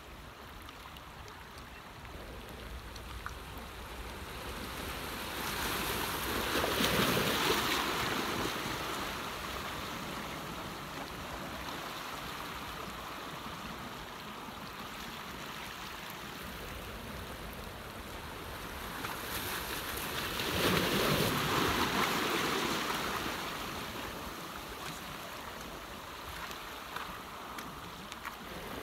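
Sea waves washing in: a steady wash of water with two swells of surf, one about six seconds in and one about twenty seconds in, each rising and falling over a few seconds.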